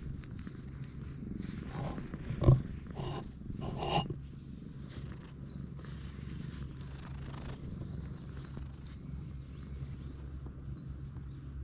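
Domestic cat purring steadily with a low rumble while it is stroked and rubs against a person's leg. There is a sharp thump about two and a half seconds in, with rustling of hand, fur and clothing around it.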